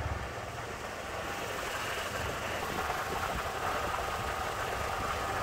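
Golf cart driving along a street: steady motor and road rumble, with a faint thin whine coming in about halfway through.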